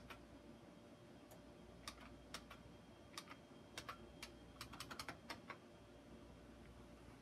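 Faint keystrokes on a computer keyboard: an uneven run of clicks that comes fastest about four to five seconds in, then stops.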